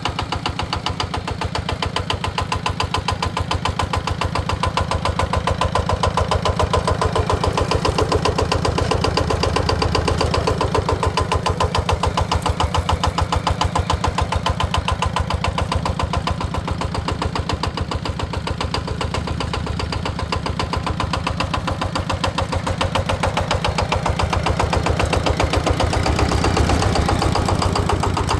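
Engine idling steadily with a rapid, even knocking beat, getting a little louder near the end.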